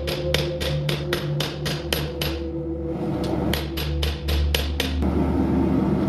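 Hammer blows on steel over an anvil, forging an old file into a knife blank: quick ringing strikes about four or five a second, a pause of about a second partway through, then more blows.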